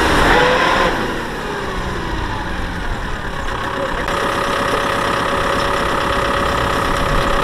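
The diesel engine of a Kubota M6040SU tractor running steadily. A steady higher tone joins it about four seconds in.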